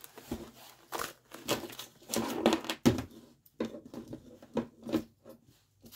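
Plastic and squishy fidget toys being rummaged through and handled, giving an irregular series of clicks, knocks and rustles.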